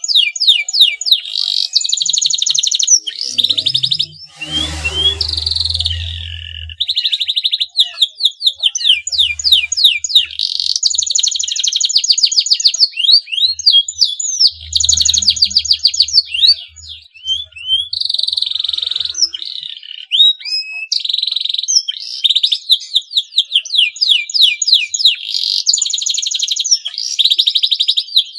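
Male domestic canary in breeding condition singing: long, loud runs of rapid chirps and trills with quick rising and falling sweeps. A low rumble sits under the song twice, about five seconds in and again around fifteen seconds.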